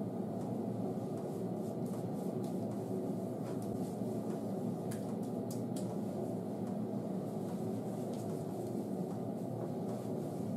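A steady, low hum with no change in level, with a few faint ticks around the middle.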